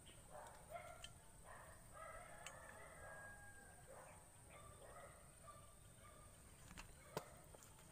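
Faint chickens calling in short, repeated notes, with one sharp click about seven seconds in.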